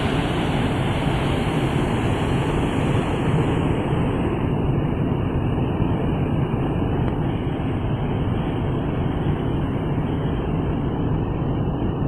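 Waterfall in flood, a heavy torrent of muddy floodwater pouring over the drop: a deep, steady rush of falling water with no let-up.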